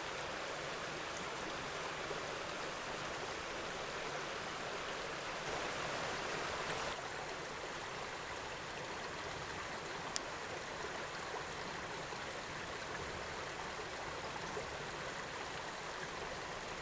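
A small babbling brook running over stones: a steady rush of shallow flowing water, a little louder for a moment about six seconds in, with one light click about ten seconds in.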